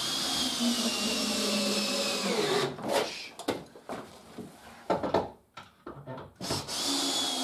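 Drill driving a frame fixing screw, its motor whine sagging in pitch and slowing as the screw bites. A few knocks and clicks follow, and the drill starts a second run near the end.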